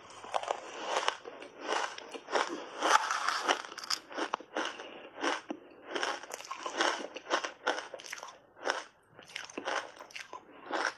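Close-up crunching and chewing of big mouthfuls of frozen pink shaved ice mixed with milk powder: quick irregular crunches, with a brief pause about nine seconds in.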